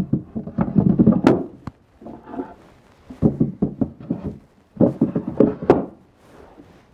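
Wooden beehive super boards knocking and clattering against each other and against the wooden assembly jig as they are handled and set in place, in three bunches of quick knocks.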